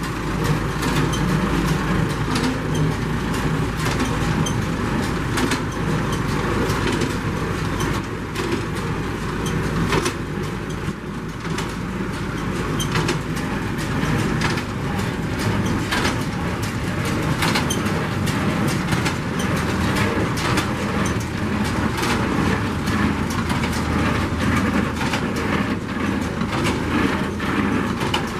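New Holland 376 small square baler running stationary, its mechanism turning over steadily with frequent sharp clicks and knocks over a continuous mechanical drone.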